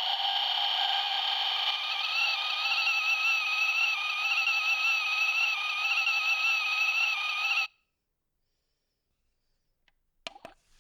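Toy kettle sounding a high, steady tone with a slight warble, which cuts off suddenly about three-quarters of the way in; a couple of faint clicks follow near the end.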